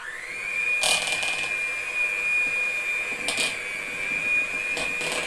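Electric hand mixer switched on, quickly spinning up to a steady high whine as its beaters whip a shortening frosting base, with a few brief louder rasps from the beaters in the bowl.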